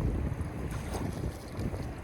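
Wind buffeting the microphone: a low, uneven rumbling noise.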